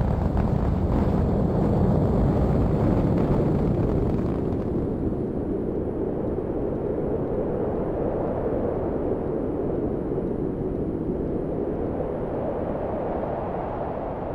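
Rocket launch: the engines' continuous low rumble, easing down about four seconds in and then slowly fading.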